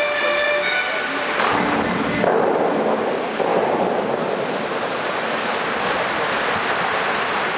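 Water from a wall of tall Bellagio fountain jets rushing down into the lake in a steady hiss of spray. A held chord of the show's music fades out about a second in.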